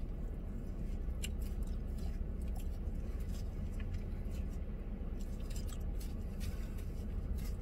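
Someone eating shaved ice from a cup with a spoon: small scattered clicks and scrapes of the spoon in the ice, with chewing, over a steady low rumble.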